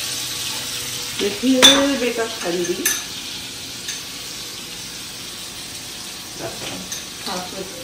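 Hot oil sizzling in a kadai as ginger-garlic paste and red chilli powder fry, with sharp metal clinks of a spoon against the bowl and pan about a second and a half and three seconds in.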